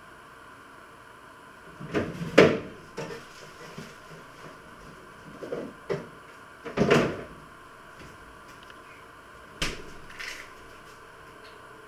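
Knocks and clunks of someone working in a kitchen, the loudest about two and a half seconds in and about seven seconds in, with a few smaller ones near six and ten seconds, over a faint steady hum.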